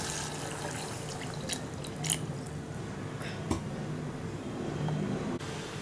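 Cooked toor dal water poured into a steel pot of cabbage and spices, the liquid splashing onto the vegetables, with a few light clicks.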